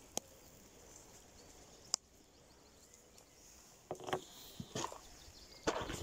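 Fishing gear and a bait packet being handled on wooden decking: two sharp clicks in the first two seconds, then a run of knocks and rustles from about four seconds in.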